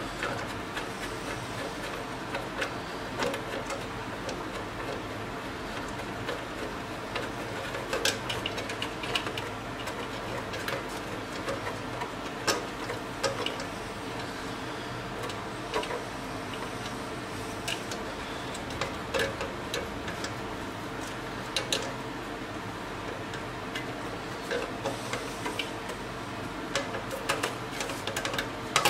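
Irregular light metal clicks and taps as a motorcycle oil tank is worked into place by hand and its mounting nuts and bolts are fitted, over a steady low hum.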